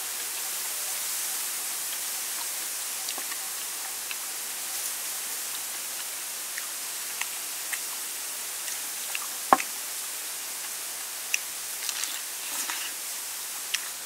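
Steady high hiss with scattered small clicks and crunches of someone eating crispy fried chicken, one sharper click about nine and a half seconds in.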